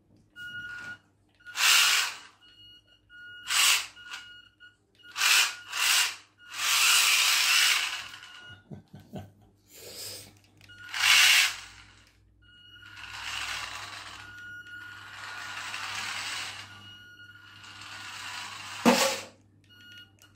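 Converted toy RC car's small electric motor and gearbox whirring in a series of short throttle bursts, some up to about two seconds long, with a steady high whine in each. A sharp knock near the end.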